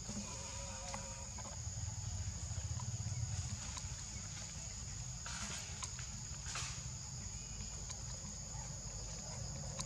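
Steady high-pitched insect chorus over a low rumble, with two brief scratchy noises about five and six and a half seconds in.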